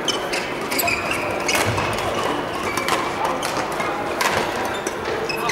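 Badminton rally: several sharp racket strikes on the shuttlecock, spaced about a second apart, over the steady background noise of a large sports hall.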